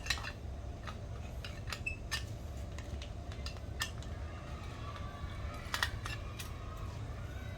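Scattered light clinks and taps of eating utensils against a tin can or dish, a few at a time, with a small cluster about three quarters of the way through, over a steady low rumble.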